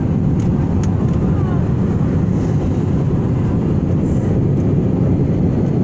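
Steady low roar of an Airbus A320-family jet airliner's cabin in cruise flight: engine and airflow noise heard from a window seat.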